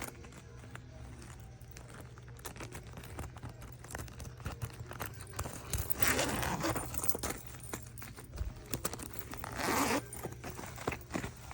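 Backpack being handled, with scattered clicks and rustles and two zipper pulls: a longer one about six seconds in and a shorter one near ten seconds.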